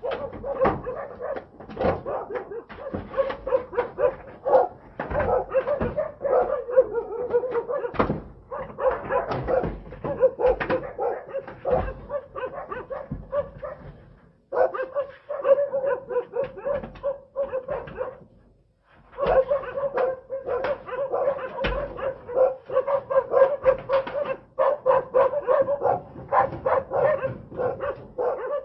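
Dogs barking rapidly and without let-up, with two short pauses about 14 and 18 seconds in.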